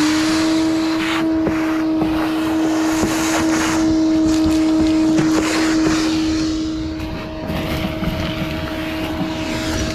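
Ridgid shop vac running with a steady, high motor whine, sucking loose debris and grit out of the boat, with scattered ticks and rattles as bits go up the hose.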